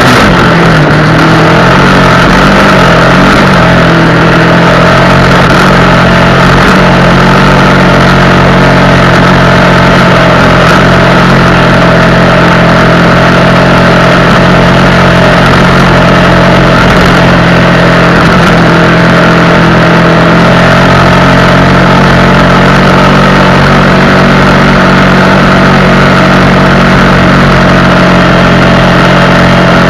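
Honda XR Tornado 250 motorcycle's single-cylinder engine running loudly at a steady speed, after a brief rise in pitch at the start.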